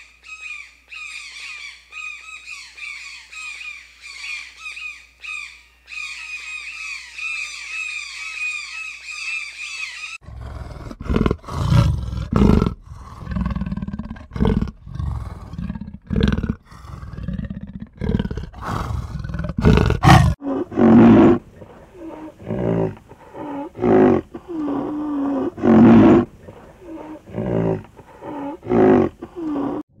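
Rapid, repeated high chirping calls for about the first ten seconds, then a big cat growling and hissing in short, loud, repeated snarls.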